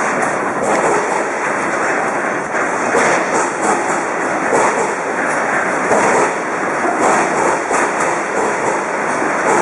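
Airport terminal building shaking in a strong earthquake: a loud, continuous rumbling rattle that swells and eases unevenly.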